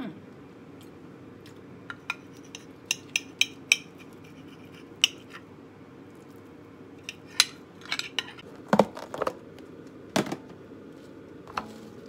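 Metal butter knife clinking and tapping against a glass baking dish: a dozen or so sharp, irregular clicks, with a few duller knocks about two-thirds of the way through.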